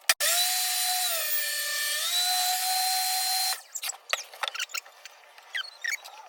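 Table saw running as it trims the edge off a wooden cutting board: a loud, steady whine whose pitch dips for about a second and comes back up. It cuts off suddenly about three and a half seconds in, followed by light clicks and knocks.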